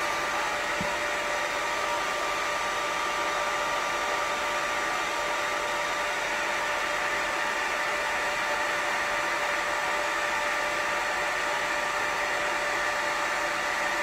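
Hand-held hair dryer with a diffuser attachment running steadily, drying curly hair: an even rush of air with a steady motor whine over it.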